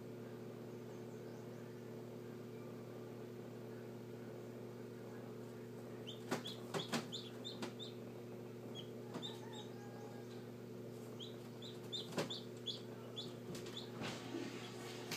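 Short high peeps of a hatching Silkie chick, many of them from about six seconds in, with a few sharp clicks, over the steady hum of the incubator's fan.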